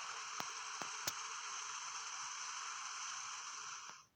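Rushing water of a waterfall: a steady, even rush with a few sharp clicks in the first second, cutting off suddenly near the end.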